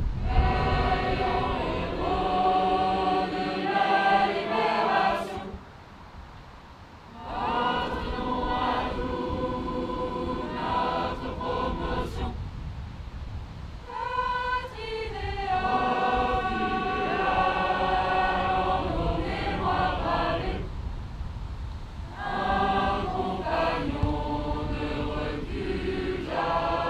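A large group of voices singing together in chorus. The song goes in phrases of several seconds, each followed by a brief pause.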